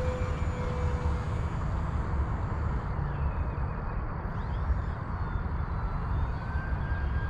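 Wind buffeting the microphone, with the faint whine of an FMS Cessna 182 RC plane's electric motor as it flies past. The pitch falls near the start and climbs again in the second half.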